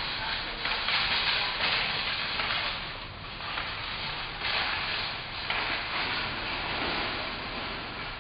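Outdoor background noise: a rushing hiss that swells and fades every second or so.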